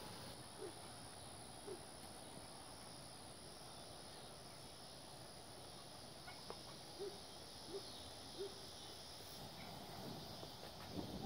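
A bird giving short, low hoots, two close together at the start and three more in quick succession past the middle, over a faint rural background with a thin, steady high whine that stops near the end.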